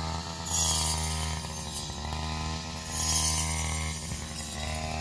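Petrol brush cutter running steadily, its engine note rising with a burst of hiss about every two and a half seconds as the blade swings through ripe rice stalks.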